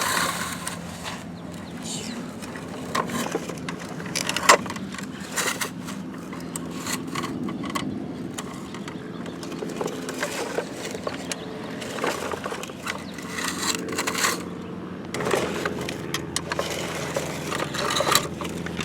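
Plastic toy construction trucks scraping and crunching through dirt, with scattered clicks and knocks and one sharp knock about four and a half seconds in, over a steady low hum in the background.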